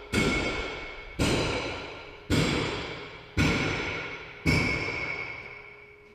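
Background music: a single struck, ringing note repeated about once a second, five strikes in all, each decaying slowly before the next.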